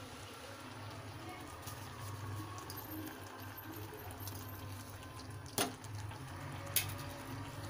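Maggi instant noodles simmering in a pot of water on the stove, a low steady bubbling, with two sharp clicks about five and a half seconds in and again a second later.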